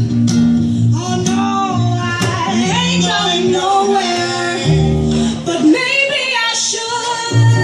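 Live acoustic blues band: a woman singing drawn-out, bending notes over acoustic guitar and plucked double bass. The low bass notes drop away about five and a half seconds in and come back just before the end.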